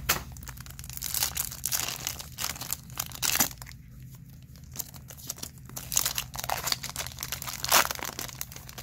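Foil wrapper of a Topps Chrome baseball card pack being torn open and crinkled by hand: a run of sharp crackles, loudest about three and a half seconds in and again near the end.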